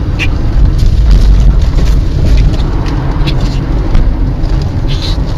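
Steady low rumble of a car driving, with road and engine noise picked up by a dashcam inside the cabin, and a few faint clicks.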